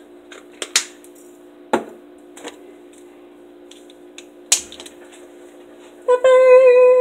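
A few sharp clicks as a small spice container is handled, over a faint steady hum. About six seconds in, a cat gives one long, level meow, the loudest sound here.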